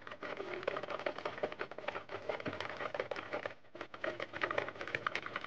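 A wire whisk stirring a milky durian-and-milk pudding mixture in a bowl to dissolve the sugar. The wires make rapid, irregular clicks and scrapes against the bowl, with the liquid swishing.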